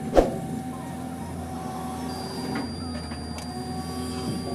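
Diesel engine of a PC200 hydraulic excavator running steadily, heard from inside the cab as it digs, with one sharp knock just after the start and a thin, steady high tone in the second half.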